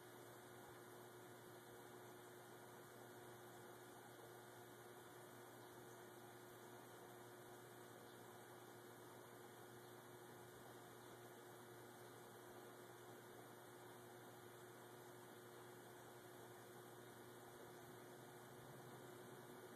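Near silence: a steady faint hiss with a low electrical hum, the recording's background noise.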